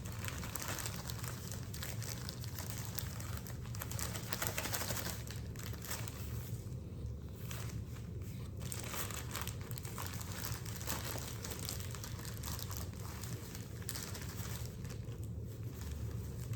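Plastic zipper bag crinkling steadily as the fish inside is worked around to coat it in fish fry batter.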